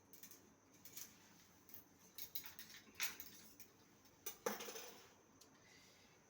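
Faint, scattered light clicks and taps of small kitchen utensils and ingredients being handled, with a louder knock and a brief scrape about four and a half seconds in.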